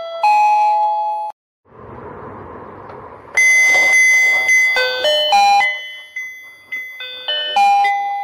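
Simple electronic chime melody played one note at a time. About a second in it breaks off, and for a couple of seconds there is only rustling noise before the loud chiming notes return.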